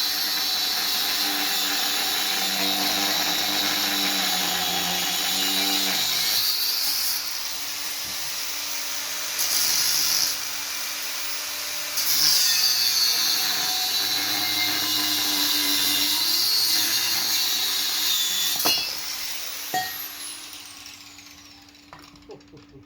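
Power tool cutting through car body steel, its high whine sagging in pitch under load and recovering, then winding down near the end.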